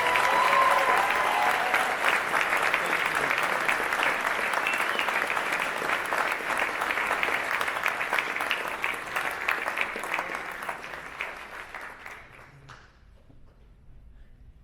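Audience applauding steadily, dying away about twelve to thirteen seconds in.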